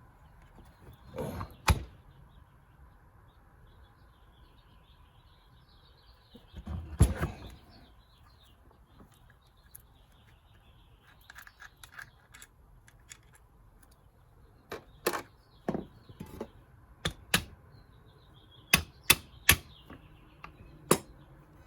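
Scattered sharp metal clicks and knocks of VW Beetle transmission parts being handled and fitted. Two heavier knocks come early, and the clicks come more often in the last third.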